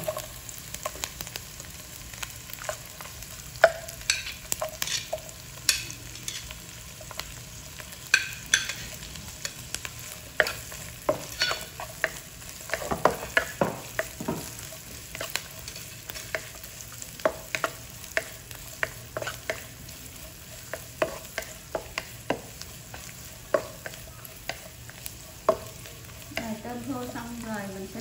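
Diced onion, minced garlic and dried shrimp frying in hot oil in a nonstick wok: a steady sizzle under irregular scrapes and taps of a wooden spatula stirring against the pan.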